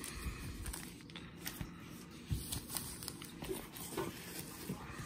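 Sealed foil trading-card pack wrappers crinkling faintly as a stack of them is picked up and handled, with scattered small ticks and a few soft knocks.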